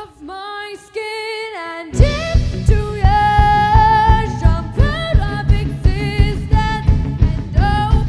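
Indie pop band playing live with a singer. For about two seconds the drums and bass drop out under held sung notes, then the full band with drums comes back in and the singing carries on.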